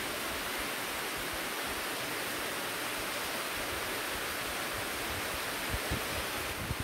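Steady rain falling, an even hiss throughout, with a few soft low bumps near the end.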